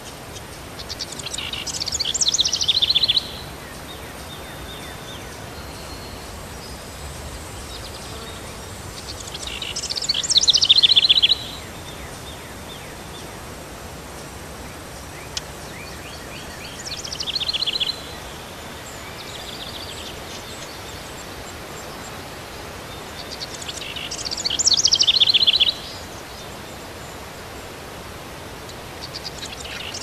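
A songbird singing the same short phrase again and again, about every seven seconds: a quick run of high notes, falling in pitch and stopping abruptly, each about two seconds long, over a steady outdoor hiss.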